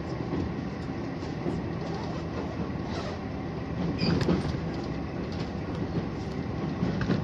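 HOT7000 series diesel railcar running at speed, its engine, wheel and track noise heard from inside the front of the car. There is a louder burst with a brief high squeal about four seconds in, and another louder moment near the end.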